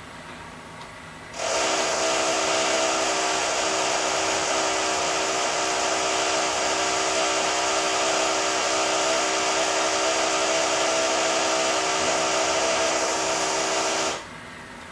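High-pitched power drill starting about a second and a half in, running steadily at full speed for about thirteen seconds, then stopping shortly before the end.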